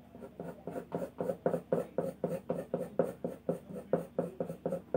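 Soft 8B graphite pencil scratching across drawing paper in quick, even back-and-forth strokes, about four a second, laying down dark hair shading.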